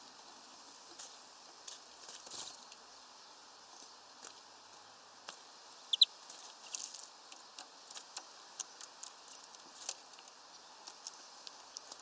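Small birds at a hanging peanut feeder: scattered light ticks and taps, and one short, high double chirp about six seconds in, the loudest sound.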